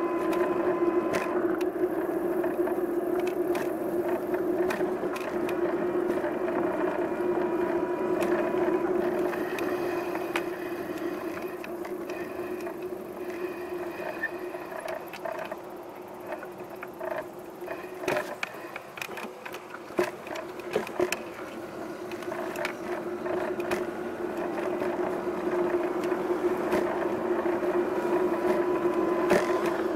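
A bicycle ride in motion: a steady pitched hum with scattered clicks and rattles, growing quieter for a few seconds around the middle before picking up again.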